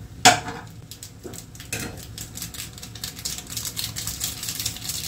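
A pot of noodles boiling hard, a dense crackle of bubbling, with one sharp knock about a quarter second in. The pot is on the verge of boiling over.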